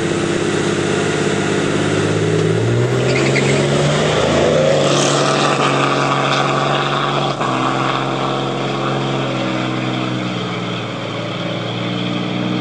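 Two street-race cars accelerating hard away from a standing start, their engines running at high revs and stepping through several gear changes. They grow somewhat fainter toward the end as they draw away.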